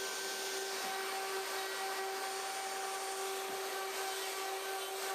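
Wood router running steadily with a countersink bit, chamfering the edges of drilled holes in MDF to clean up the tear-out. A steady, even motor whine that holds its pitch.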